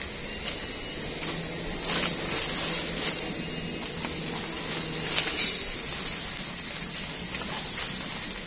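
Loud, steady, high-pitched chorus of insects droning without a break, with a few faint knocks.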